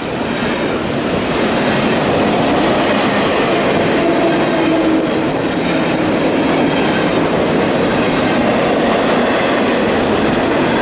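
A train passing close by: a steady, loud rumble of wheels on rail with the clickety-clack of the cars over the track joints.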